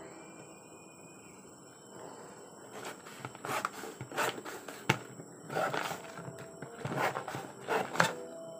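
Stiff clear plastic clamshell packaging crackling and crinkling as it is pried and pulled apart by hand. The crackling comes in irregular bursts starting about three seconds in, with a sharp snap about five seconds in and another near the end.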